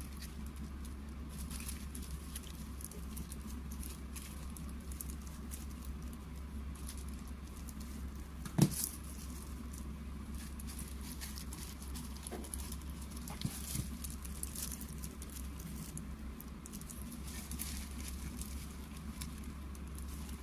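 Abalone being set in the middle of a dish of poon choi: soft clicks and rustles of food and utensils being handled, over a steady low hum, with one sharp knock about eight and a half seconds in.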